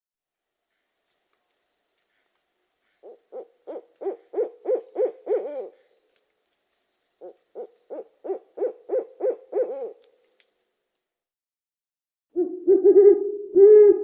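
Owl hooting: two quick runs of about nine short hoots each, each run growing louder, over a thin steady high-pitched tone. About twelve seconds in, a louder, lower run of drawn-out hoots begins.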